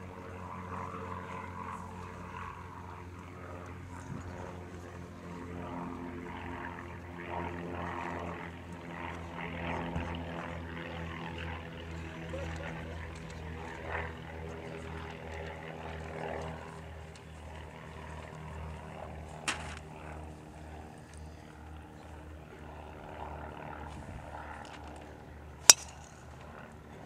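A golf driver strikes a teed ball once near the end: a single sharp crack, the loudest sound. Under it runs a steady low mechanical hum with faint voices, and a fainter knock comes about two-thirds of the way through.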